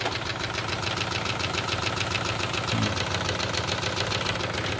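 Wilesco D32 Limited Edition model steam engine running steadily under steam, its twin cylinders and flywheels working at a rapid, even beat.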